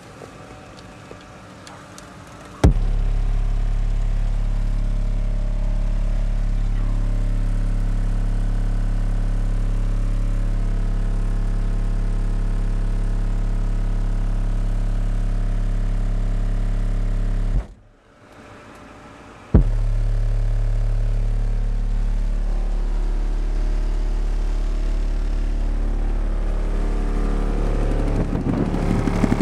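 Two 15-inch Rockford Fosgate P3 subwoofers playing a loud, steady deep bass test tone from a car stereo. It starts a few seconds in, cuts out for about two seconds past the middle, then comes back with its pitch changing.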